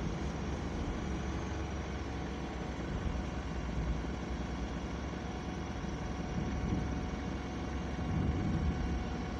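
Bus engine and drivetrain running while the bus is moving, heard inside the passenger saloon as a steady low rumble that swells a little about eight seconds in.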